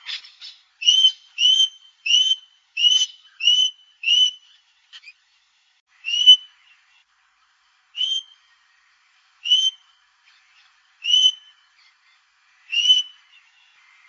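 Male Australian king parrot giving short, high piping whistles. About six come in quick succession, then single calls every second and a half or so.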